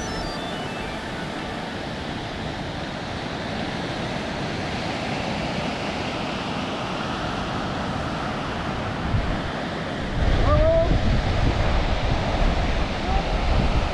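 Ocean surf breaking and washing on a beach, a steady rushing noise. About ten seconds in, wind starts buffeting the microphone with a low rumble, and the sound grows louder.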